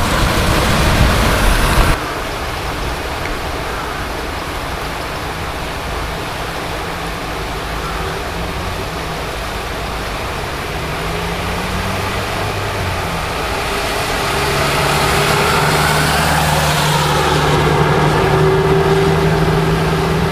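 Steady rushing of a swollen river in flood, mixed with road traffic. A louder low rumble fills the first two seconds and cuts off suddenly; from about two-thirds of the way through a vehicle engine's steady hum grows louder over the water.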